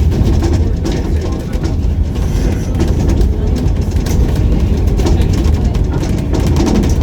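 Tour bus driving through city streets: a steady low rumble of engine and road noise, with many quick rattles and clicks.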